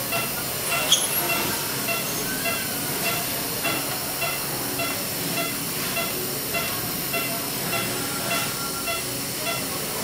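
Operating-room background: a steady hiss with a patient monitor's short pulse beep repeating evenly, about twice a second.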